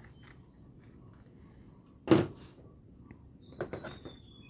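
Hard plastic toy rifle being handled and set down on a tabletop: one sharp plastic knock about two seconds in, then a few lighter clicks and taps of plastic toys a second or so later.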